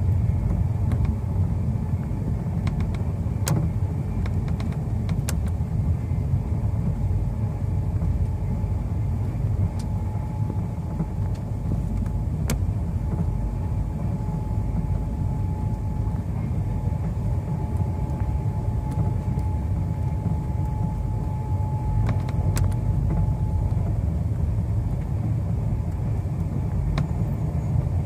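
Steady low rumble of a passenger train running, heard inside the coach, with a few sharp clicks and a faint steady whine through the middle.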